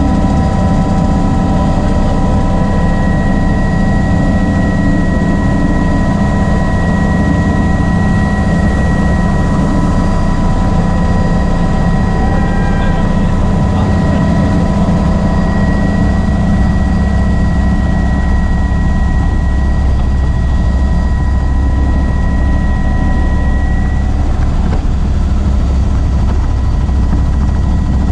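Helicopter rotor and engine running steadily in flight, heard from inside the doors-off cabin: a loud, even rumble with a fast beat and a thin high whine that fades out near the end.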